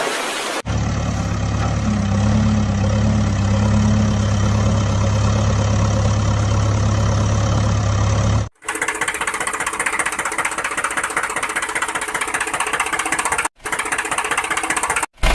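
Diesel-type engine sound running, in several clips joined by abrupt cuts: first a steady low idle, then a rapid knocking clatter.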